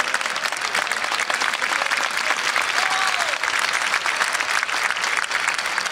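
Large stadium crowd applauding, a dense, steady clatter of many hands clapping.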